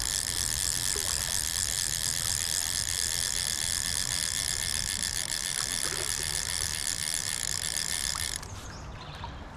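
Fly reel's click-and-pawl drag buzzing steadily as a hooked trout runs and pulls line off, cutting off suddenly about eight seconds in.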